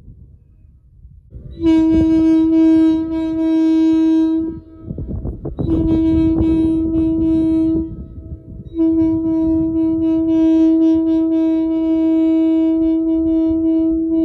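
Air horn blown three times, each blast a single steady pitch with a ring of overtones: a blast of about three seconds, a shorter one, then a long one. The horn is fed from a cordless air compressor.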